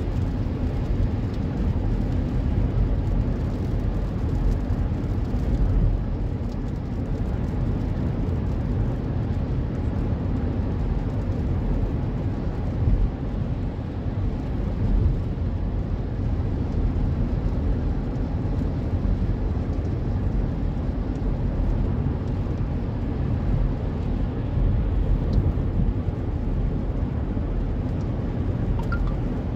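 Steady low rumble of a moving car heard from inside the cabin: tyre and engine noise on a wet highway.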